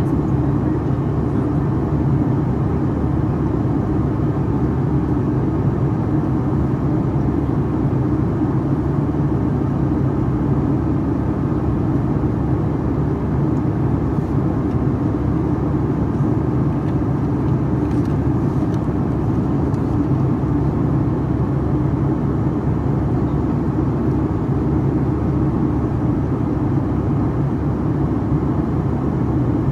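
Steady drone of a Boeing 757-300's Pratt & Whitney turbofan engines, heard inside the cabin from a seat over the wing, with a constant low hum under the rushing air noise.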